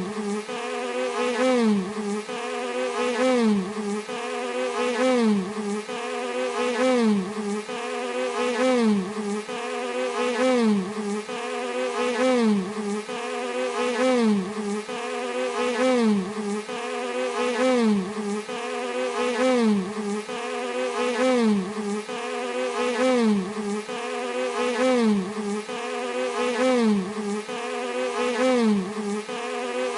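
Bee buzzing in a continuous drone with many overtones. Its pitch dips and swings back up in a regular cycle about every 1.7 seconds.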